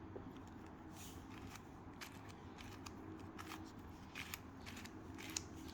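4x4x4 Rubik's Cube (Rubik's Revenge) being turned, its plastic layers clicking and clacking in an irregular run of quick turns. The clicks start about a second in, and the sharpest comes near the end.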